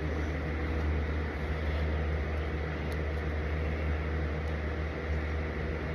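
A steady low machine hum with no change in pitch or level.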